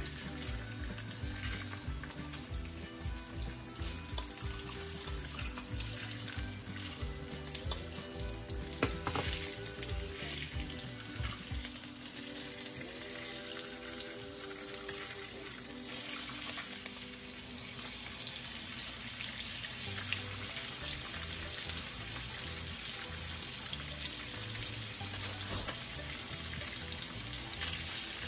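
Salmon fillets frying in hot olive oil in a nonstick pan: a steady sizzle. Soft background music plays underneath.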